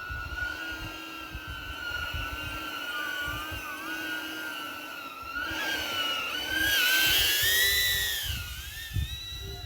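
Quadcopter drone's propellers whining in flight, a steady high hum that wavers slightly. About six seconds in, it gets louder and its pitch rises and falls back as the motors spin up and ease off.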